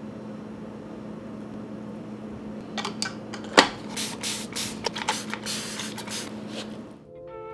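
Handheld plastic spray bottle misting houseplants: a quick series of about ten squirts over some four seconds, starting about three seconds in, over a steady low room hum.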